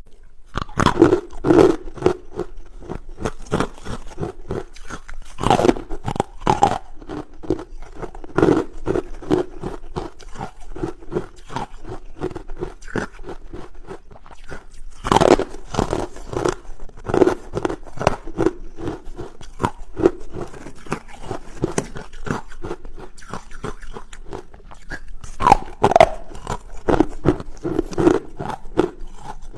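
Close-up crunching of hard carbonated ice being bitten and chewed: loud bites every few seconds, each followed by a quick run of smaller crunches as the pieces are chewed.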